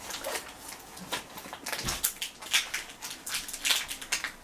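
Irregular crinkling and light plastic knocks from the countertop dishwasher's plastic water tank lid and its protective film being handled, with a dull thump a little under two seconds in.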